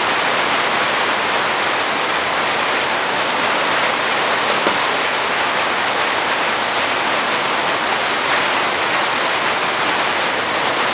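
Steady rain falling, an even hiss throughout.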